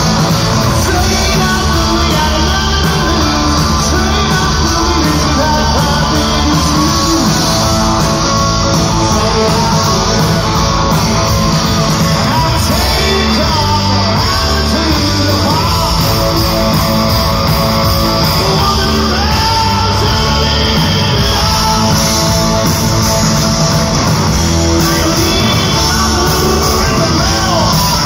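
Live rock band playing loud: electric guitars with a man singing into the microphone.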